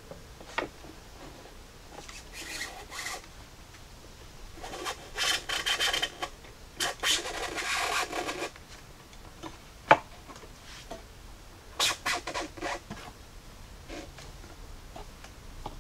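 A new heater core in its foam seal rubbing and scraping against the HVAC box as it is pushed into a pocket where it doesn't quite fit. It comes in several scraping bursts of about a second each, with a single sharp click about ten seconds in.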